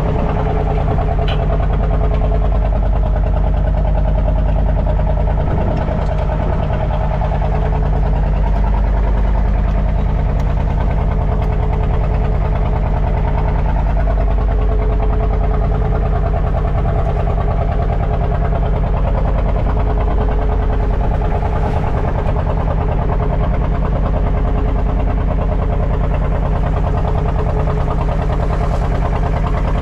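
Fishing boat's engine running steadily while under way, a constant low drone with an even hum that does not change.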